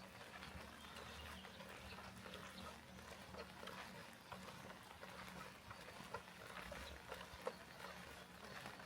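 Quiet rain ambience: a soft steady hiss of light rain with scattered small drip ticks, over a faint steady low hum.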